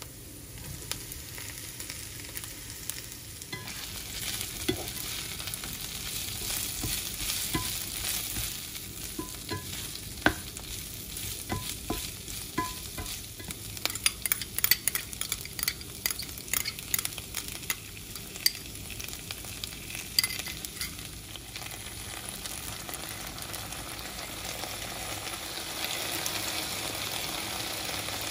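Green beans sizzling in hot oil in a nonstick frying pan as they are stir-fried, with a spatula clicking and scraping against the pan. The sizzle grows louder a few seconds in and again near the end.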